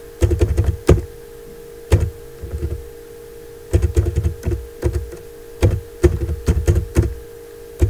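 Typing on a computer keyboard, in short bursts of key clicks with brief pauses between them, over a steady low hum.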